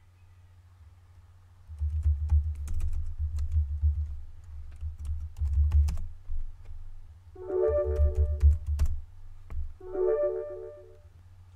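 Typing on a computer keyboard: bursts of key clicks with dull thuds, from about two seconds in until about nine seconds. A short chime of a few notes sounds twice, about two thirds of the way through and again near the end.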